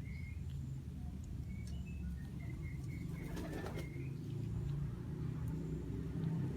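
A pigeon's wings flap in one short burst about halfway through, over a steady low rumble, with faint short bird chirps scattered throughout.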